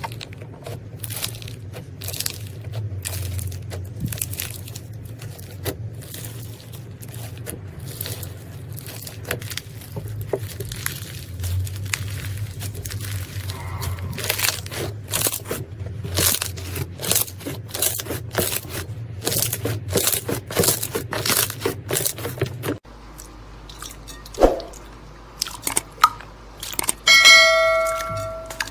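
Crunchy slime crackling and popping as it is squeezed and pressed, a dense run of sharp crackles. About 23 seconds in the sound changes to quieter squishes and pops, and a short bell-like ding sounds near the end.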